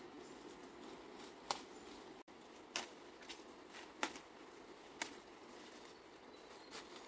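Leafy stalks being pulled down and picked by hand: a handful of sharp, irregular snaps and rustles over a faint steady hiss.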